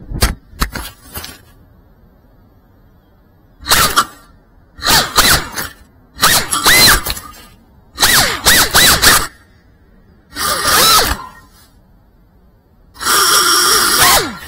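FPV quadcopter crashing: a few sharp knocks as it hits the ground, then about six short bursts of high brushless-motor whine, each rising and falling in pitch, with quiet gaps between, as the motors spin up and stop again with the drone lying in the grass.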